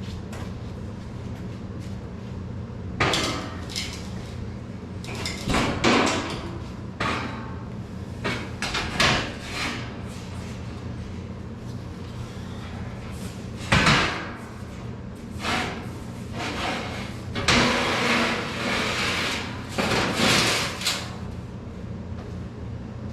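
A 14-gauge steel sheet-metal water pan being worked into the plasma table's frame: a series of irregular knocks, clanks and scrapes of metal, the busiest stretch near the end, over a steady low hum.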